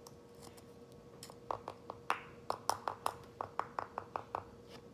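About a dozen light, sharp taps, a few per second, starting about a second in: a small plastic scoop knocked against the portable blender cup to empty out protein powder.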